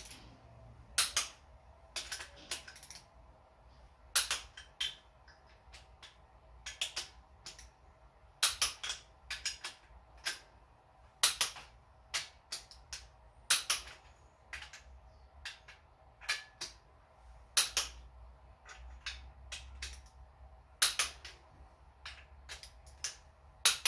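Torque wrench clicking as the cylinder-head bolts of a 1.8 L VW four-cylinder are tightened to the first 40 foot-pound stage. It makes sharp, irregularly spaced clicks, about one every second or two.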